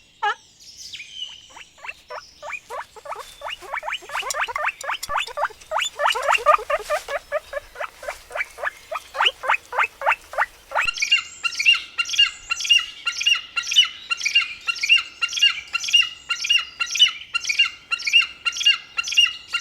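Animal calls in two clips. First comes a run of short falling chirps that speeds up. After a sudden cut, a steady run of higher squawks follows at about two or three a second.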